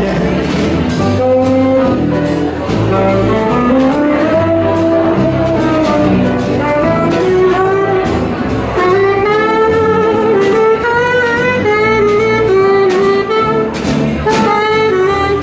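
Live swing band playing, with saxophones carrying the melody over a steady rhythm-section beat. The melody line grows stronger about nine seconds in.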